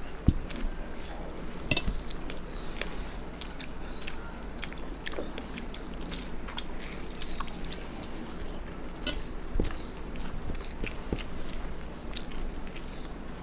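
A person chewing and biting food, with many small scattered clicks and taps against a plate; the two sharpest taps come a little under two seconds in and about nine seconds in.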